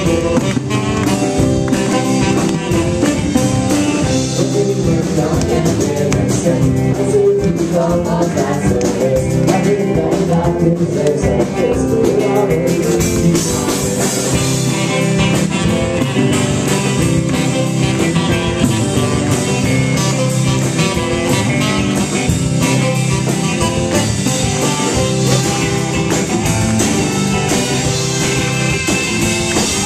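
Live rock band playing guitar-led rock music with a steady drum beat, loud and unbroken, with some singing mixed in.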